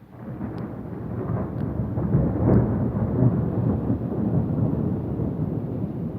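A loud roll of thunder from a strong thunderstorm. It breaks out suddenly, swells to its loudest about two and a half seconds in, then rumbles on and slowly fades.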